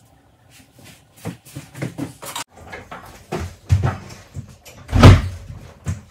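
Irregular knocks and clunks of things being handled and set down while a room is tidied and rearranged, with one heavier thud about five seconds in.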